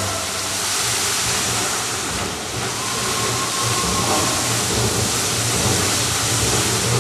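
Water jets of a large illuminated fountain spraying and splashing down into the basin: a steady rushing hiss.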